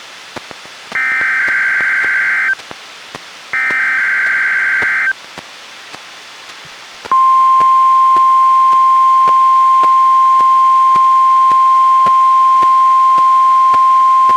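Emergency Alert System test on NOAA Weather Radio, heard through a weather radio's speaker. Two bursts of the SAME digital header play first, each a warbling data buzz about a second and a half long. About two seconds of quiet follow, then the steady 1050 Hz warning alarm tone starts about seven seconds in and holds.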